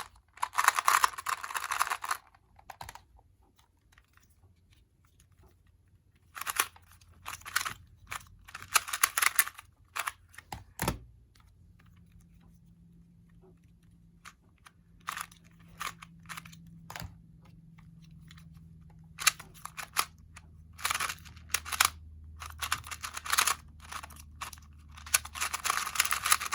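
Plastic 2x2 speedcubes being turned fast, in bursts of rapid clicking and rattling with quieter pauses between, and a single knock about eleven seconds in as a solved cube is dropped.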